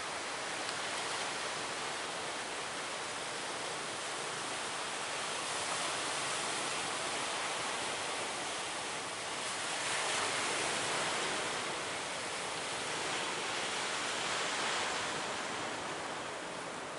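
Heavy ocean surf: a steady wash of big waves breaking, swelling louder about ten seconds in and again near the end.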